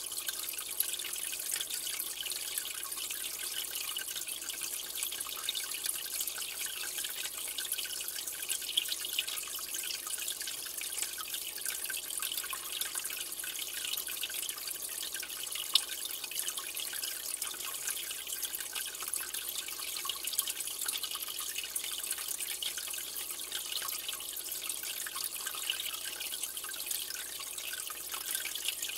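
Aquarium water trickling and splashing steadily, a filter's running water, with many small drips and a few sharper plinks.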